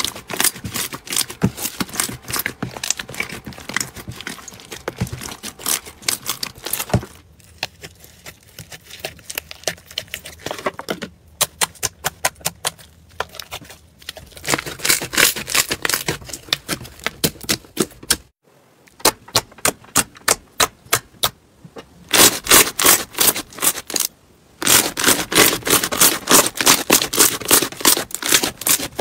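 Slime being squeezed and worked by hand, making rapid runs of sticky clicks and pops, in several short takes that cut off abruptly and start again.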